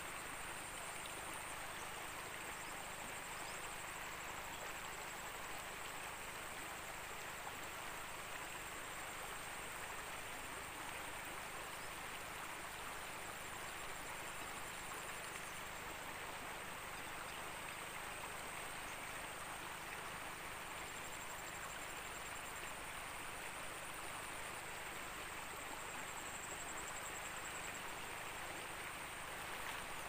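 River water rushing over a shallow, rocky stretch, a steady hiss. A high, steady trilling comes and goes over it in long stretches.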